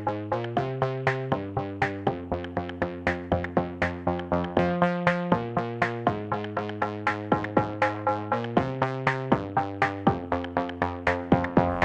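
Background music: a steady run of short synthesized plucked notes, about four a second, over a changing chord.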